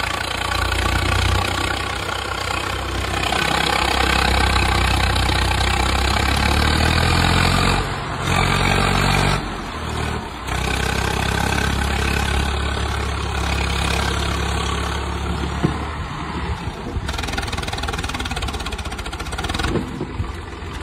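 Modified Swaraj tractor's diesel engine running hard under load as it pulls an overloaded trolley of earth, with brief drops in the engine sound about eight and ten seconds in.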